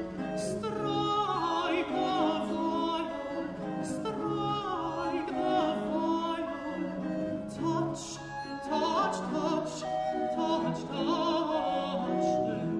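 A countertenor singing a baroque solo aria with vibrato, accompanied by recorders and continuo over a repeating ground bass.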